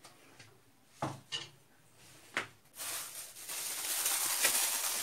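Three light knocks of kitchenware being handled, then a steady hiss that starts about three seconds in and grows louder.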